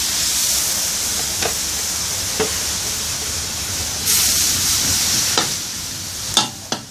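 Minced pork and kale sizzling in a hot steel wok while a metal spatula stirs them, clicking and scraping against the pan several times. The sizzle swells about four seconds in.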